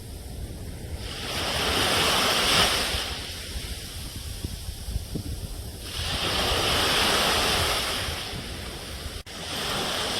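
Ocean surf washing ashore: two surges of wave hiss about five seconds apart over a steady low rumble, and a third wave starting just after a brief dropout near the end.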